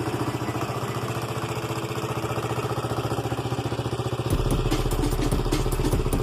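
KTM Duke motorcycle engine idling steadily just after starting, with a threaded plug sealing a hole drilled in the catalytic converter section of the exhaust, which quiets the exhaust note. About four seconds in, the sound gets louder and deeper, with sharp ticking over the idle.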